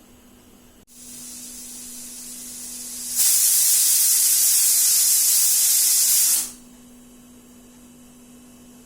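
Pressure cooker whistle: steam hissing out of the weight valve, building for about two seconds, then blasting loudly for about three seconds before cutting off sharply. Each such whistle marks the cooker reaching full pressure and venting.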